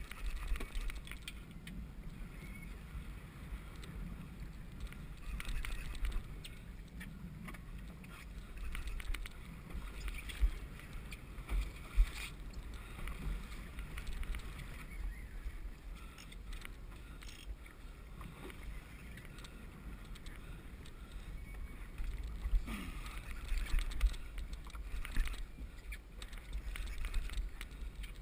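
Choppy sea water slapping and splashing against a small boat's low hull, with occasional louder splashes, over a steady rumble of wind on the microphone.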